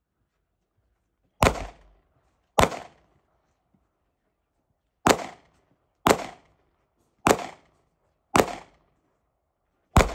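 Seven pistol shots, a second or so apart with a longer pause after the second, each followed by a short echo trailing off.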